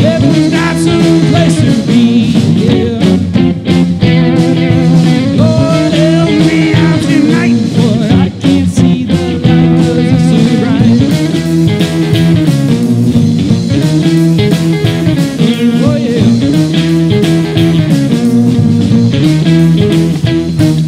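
Rock band playing live: two electric guitars, an electric bass and a drum kit, with no vocal line transcribed.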